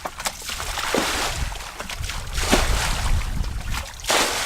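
Water sloshing and splashing in several bursts, with a low rumble underneath.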